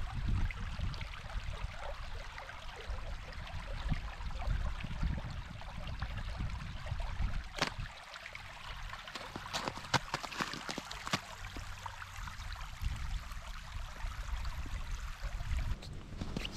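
Shallow creek water trickling over gravel, with wind rumbling on the microphone and a few sharp clicks about halfway through.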